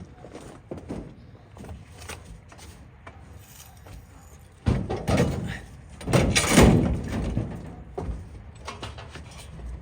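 Scrap being handled and thrown onto a pile: light knocks and clatter, then two louder crashing clatters about five and six and a half seconds in, the second the loudest.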